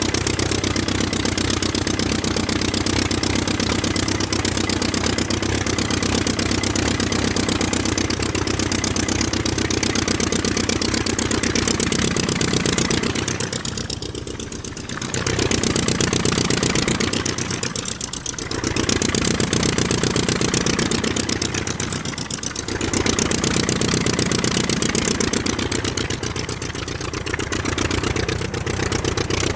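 An engine running with a fast, even pulse, its level dipping briefly three times before it picks up again.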